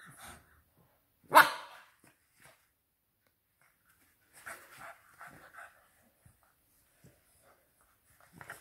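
English bulldog puppy giving one sharp bark over a chew, followed by softer, scattered noises from the puppies at play.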